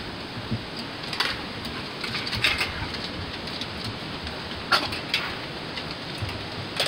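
Beagles moving about in a chain-link dog pen: scattered light scuffs and clicks, a few seconds apart, over a steady outdoor hiss.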